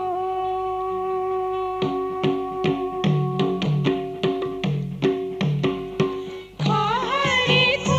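Instrumental passage of a Nepali Teej folk song: a held melodic tone, then steady drum beats come in about two seconds in, a little over two beats a second. Near the end a new wavering melody with vibrato takes over.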